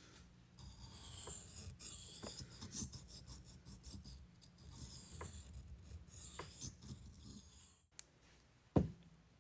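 A 440C steel push-dagger blade is stroked over and over across a wet 3000-grit whetstone, making a soft, uneven scraping. The scraping stops suddenly about eight seconds in, and a single thump follows near the end.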